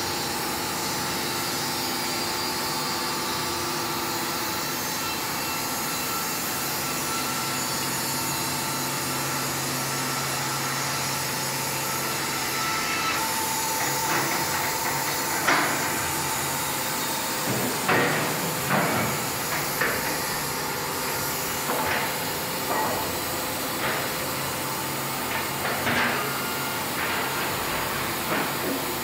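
Wood-Mizer WM3500 industrial sawmill running with a steady hum and hiss. From about halfway through, irregular sharp metal clanks and knocks come every second or two, the loudest a little past the middle.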